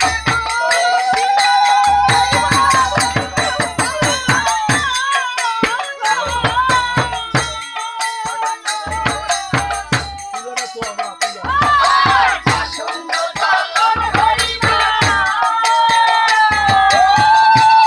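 Matua devotional folk music: singing over a keyboard melody, jingling and rattling hand percussion, and a deep beat about every two seconds.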